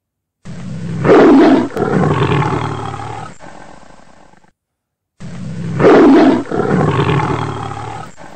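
A big-cat roar sound effect dubbed in, played twice as an identical copy: each roar cuts in abruptly, is loudest in its first second, and trails off over about three seconds.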